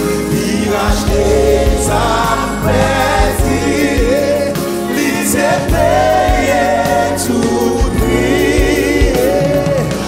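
Gospel worship song sung in Haitian Creole by a lead singer and backing vocalists, with electronic keyboard accompaniment and a steady beat.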